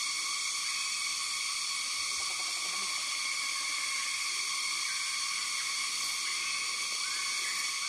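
Steady, high-pitched droning of a forest insect chorus, unbroken throughout, with faint splashing from a hawk bathing in a shallow stream about two to three seconds in.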